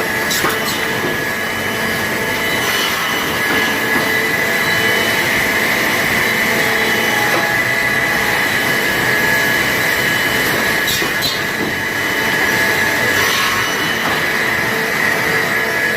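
Sawmill machinery running steadily with a constant high-pitched whine, over a continuous rushing noise, with a few short knocks.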